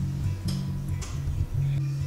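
Background music: a plucked guitar over a bass line of low notes, about two a second.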